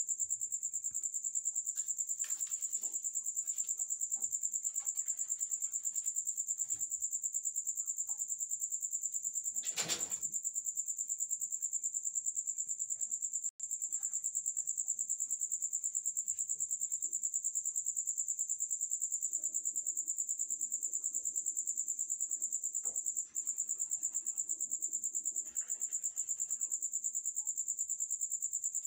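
Crickets trilling steadily in one high, continuous pulsing note, with a brief knock about ten seconds in.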